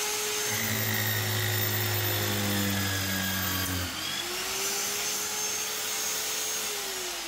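Electric magnetic drill motor running. For about three seconds its pitch sags and a deep hum joins it while the bit cuts into a square steel tube. The motor then picks back up and begins winding down near the end.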